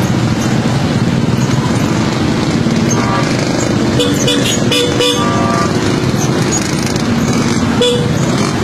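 Road traffic: engines running steadily, with vehicle horns tooting several times around the middle and once more near the end.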